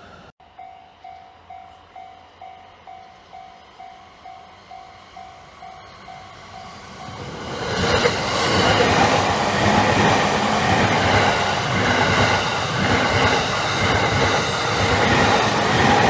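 Japanese railroad crossing alarm ringing, a repeated ding about two times a second; about seven seconds in, a Takasaki Line train arrives and passes through the crossing, its loud rolling noise taking over from the bell.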